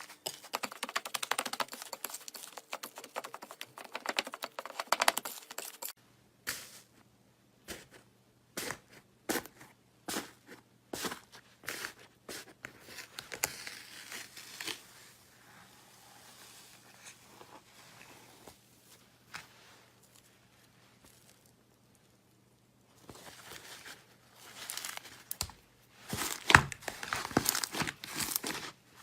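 Slime being handled: squished, stretched and poked by hand, giving runs of many small clicks and pops. The clicks are dense for the first six seconds, thin out and grow quieter through the middle, and turn dense again for the last few seconds.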